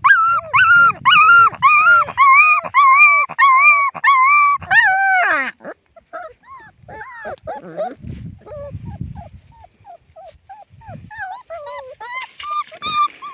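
Puppies whining and crying in high-pitched cries, about two a second: loud and repeated for the first five seconds, then softer, shorter whimpers that grow louder again near the end.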